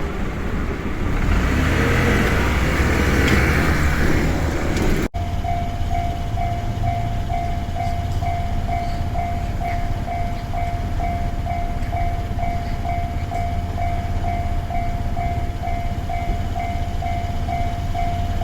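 A train passing over a Japanese level crossing, a loud rush of wheel and rail noise with low rumble, for about the first five seconds. After an abrupt break, the crossing's electronic warning bell rings on in a steady repeating ding, about two strokes a second, over a continuing low rumble.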